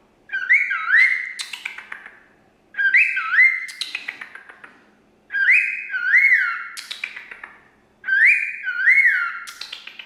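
Cockatiel singing: the same short whistled phrase four times over, each a few rising-and-falling notes followed by a quick run of sharp clicks.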